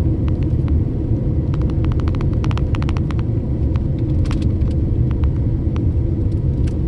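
Steady low rumble of a vehicle driving on a road, heard from inside, with a run of sharp ticks about a second and a half in and a few scattered ones later.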